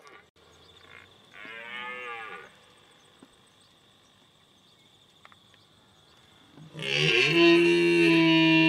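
Cow mooing: a short call about two seconds in, then a long, loud, steady moo near the end.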